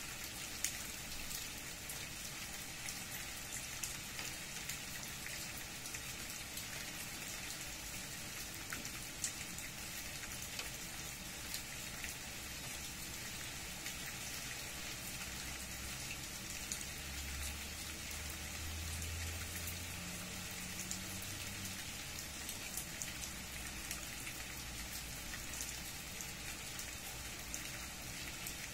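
Steady rain falling on tree leaves and leaf-covered ground, with many single drops ticking through the patter. A low rumble swells briefly around the middle.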